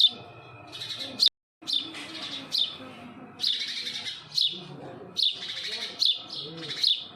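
Baby sparrow chirping repeatedly: short high chirps, each dropping in pitch, every half second to a second. The sound cuts out briefly about a second in.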